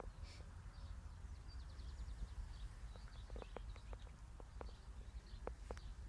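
Low wind rumble on the microphone over an open field, with faint, scattered short bird chirps and a brief rapid high trill about a second and a half in.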